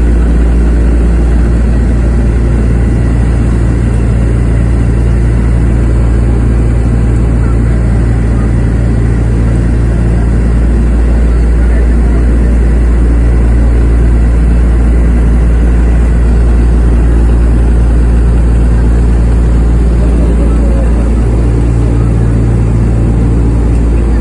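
Cabin noise inside a Douglas DC-3 in flight: the loud, steady drone of its two radial piston engines, with rushing air above it. The low hum swells slightly about eleven seconds in and again near the end.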